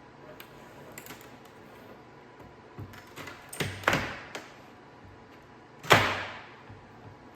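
A few sharp knocks and clatters of objects being handled: faint clicks about a second in, two louder knocks around the middle, and the loudest knock near six seconds in with a short fading tail.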